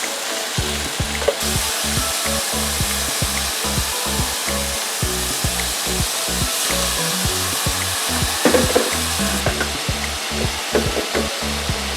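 Chicken thighs sizzling as they fry in hot butter, a steady hiss, over background music with a pulsing bass beat. A few sharp knocks come about eight and a half seconds in.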